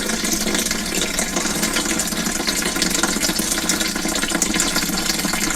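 Petrol running out of a motorcycle fuel tank in a steady stream and splashing into a container as the tank is drained.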